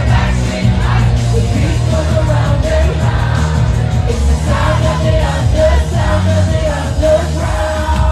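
Live pop-rock music played loud through a concert PA, with a heavy pulsing bass line and a woman singing over the band.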